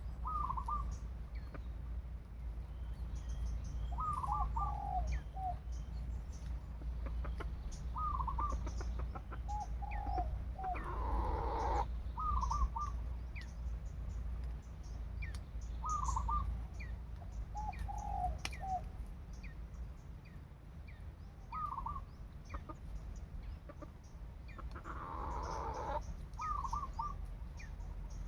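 Fowl calling in short two- and three-note clucks every few seconds over a steady low rumble. There are two brief louder rustling bursts, about eleven seconds in and near the end.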